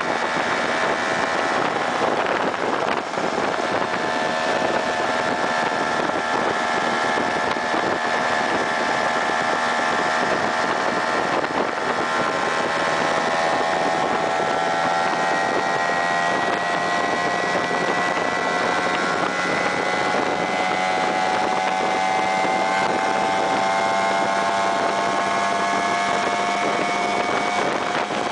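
Vespa PX scooter's two-stroke single-cylinder engine running steadily under way, its pitch climbing slowly through the second half as the scooter gathers speed. Wind buffets the microphone throughout.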